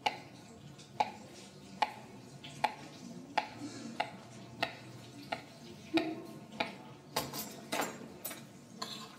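Chef's knife cutting ripe mango into cubes on a plastic cutting board: a steady series of knocks, about one every three-quarters of a second, coming quicker near the end.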